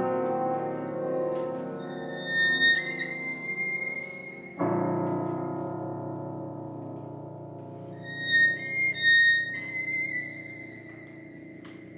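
Improvised violin and upright piano duet: sustained piano chords, a new one struck about four and a half seconds in and left to ring and fade, with high held violin notes sliding slightly in pitch above them.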